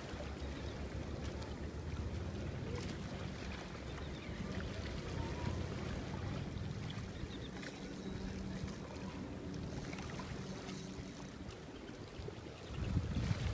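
A low, steady engine drone with faint wind noise on the microphone, and a louder rumble of wind buffeting the microphone near the end.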